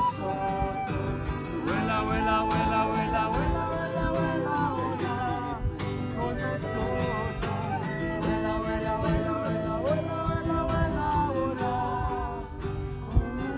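A song: a voice singing a sustained melody with vibrato over instrumental accompaniment.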